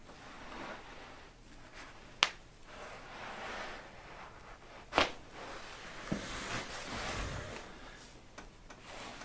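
Two sharp joint cracks from a chiropractic adjustment, about three seconds apart, the second the louder. Soft rubbing of hands and clothing fills the gaps.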